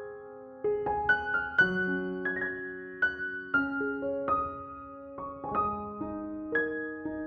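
Background music: slow, gentle solo piano playing a melody over sustained chords, each note ringing and fading.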